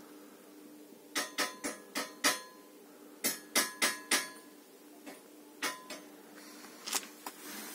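Sharp taps and knocks on a motorcycle's rear luggage rack. A quick run of five comes about a second in, then four more, then a few scattered single knocks, over a faint steady hum.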